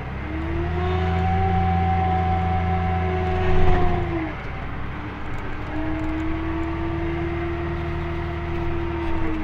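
McCormick G135 Max tractor heard from inside the cab, its engine running hard with a steady hydraulic whine as the reversible plough is raised and turned over. There is a loud clunk about three and a half seconds in; the whine drops away around four seconds and comes back a second and a half later.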